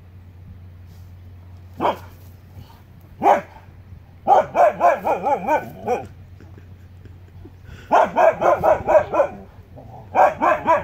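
Huskies barking and yipping excitedly: a single bark about two seconds in and another a second later, then three runs of quick, rapid-fire yelping barks.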